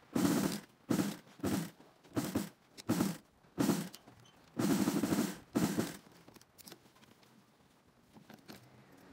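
Industrial sewing machine stitching the seams of a suede glove in short spurts: about eight bursts of rapid needle strokes in the first six seconds, each under a second long, then only a few faint clicks.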